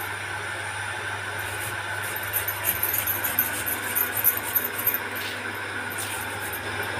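Steady mechanical hum with small scattered clicks and taps of a knife and kitchen utensils on the counter, as ginger is cut.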